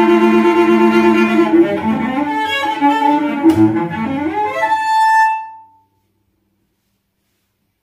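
Solo cello played with the bow: a long held note, then a quick run of shorter notes, ending on a final note that dies away about five and a half seconds in.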